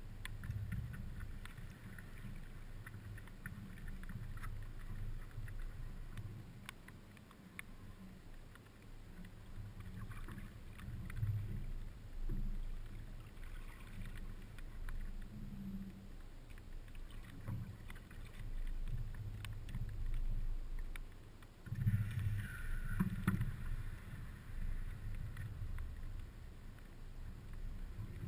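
Water lapping and sloshing against a stand-up paddleboard's hull as it is paddled along, an uneven low knocking and rumbling with scattered light clicks. A louder stretch of splashing comes about three-quarters of the way through.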